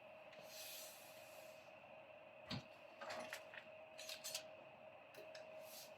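Faint scattered clicks and small handling knocks, a few close together around the middle, over a low steady hum and hiss.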